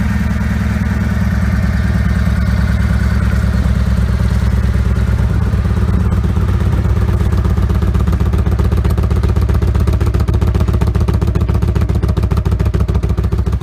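Yamaha Warrior 1700's air-cooled V-twin idling steadily, heard through its chrome exhaust muffler: a loud, even, low beat that starts suddenly with no revving.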